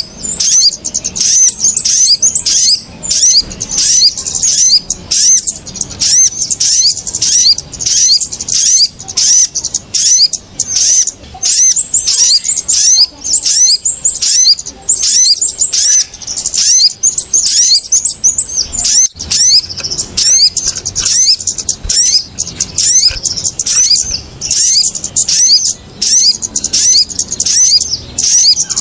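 Bird-lure recording of agitated kemade and sogon small birds: a dense, continuous chatter of quick, high chirps, several notes a second. The calls are meant to draw small birds down onto birdlime.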